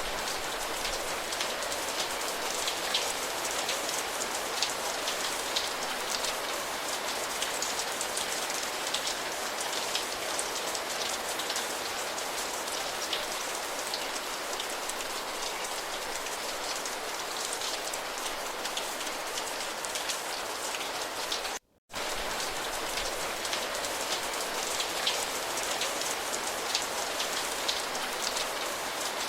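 Steady rain: a dense, even hiss with many fine drop ticks. The sound cuts out for a split second about three-quarters of the way through.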